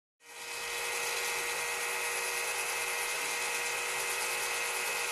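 Black+Decker cordless drill starting abruptly and running at a steady speed, spinning a hand pump's metal piston rod while an abrasive cloth is held against it. It gives a steady motor whine with an even rubbing hiss.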